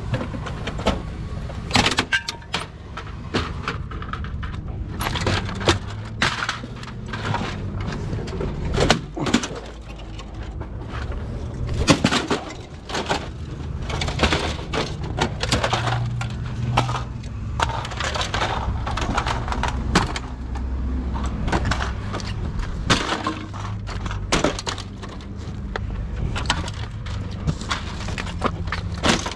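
Plastic case of a small electronics unit being cracked, pried and stomped apart to get at the circuit boards: a string of sharp cracks and snaps with clattering pieces, irregular throughout.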